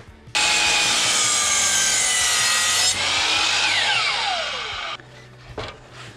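A power saw with a circular blade cuts through a wooden board for about two and a half seconds. The motor is then switched off, and its whine falls in pitch as the blade spins down, stopping about five seconds in.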